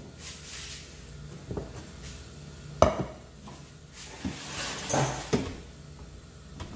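Dishes and a metal pot clinking and knocking on a table as food is handled and served: one sharp knock about three seconds in and a few lighter clinks around it.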